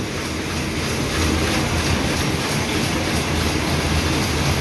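Power looms running in a weaving shed: a steady, dense mechanical clatter with a low hum underneath.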